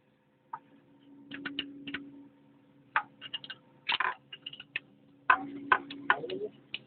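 Irregular metallic clicks, clinks and knocks of tools and parts being handled while an excavator's hydraulic drive motor is taken apart, growing busier about halfway through, over a faint steady hum.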